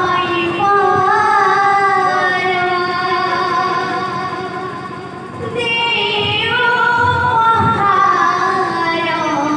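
Woman singing an Odia kirtan devotional song into a microphone, holding long sliding notes. She drops away briefly about halfway and then comes back in, with a few hand-drum strokes beneath.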